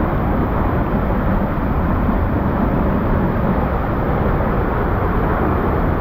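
A large waterfall heard close up: a steady, heavy rush of falling water, strongest in the low end.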